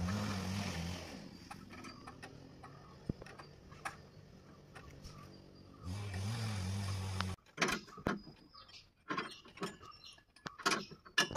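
Diesel engine idling, fading out about a second in and coming back briefly around six seconds before cutting off sharply. Scattered sharp metallic clicks and knocks follow, from hand work under the truck's chassis.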